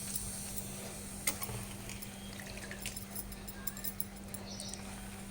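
Faint kitchen handling as spinach is added to a pot of boiled moong dal: scattered light clicks and knocks of a utensil, over a steady low hum.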